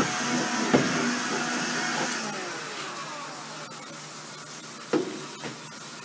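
Vacuum cleaner running, sucking lint out of a dryer vent duct at the wall opening, with a couple of sharp knocks about a second in and near the end. Its pitch slowly falls from about two seconds in as it gets a little quieter.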